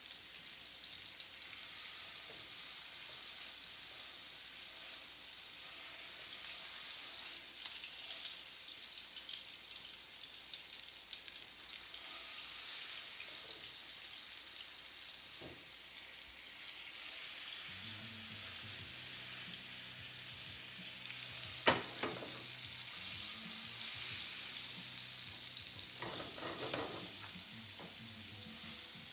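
Beef tenderloin searing in olive oil and butter in a hot frying pan: a steady sizzle, with one sharp knock about two-thirds of the way through.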